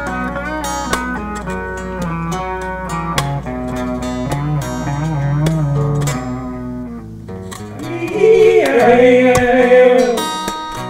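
Instrumental break in a guitar song: a picked guitar melody over a steady low bass note, then about eight seconds in a louder, wavering held tone comes in and fades near the end.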